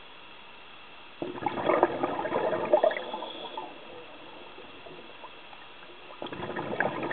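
A diver's exhaled air bubbling out underwater, recorded through the camera: two bursts of crackling bubbles about five seconds apart, one starting about a second in and one near the end, over a faint steady hiss.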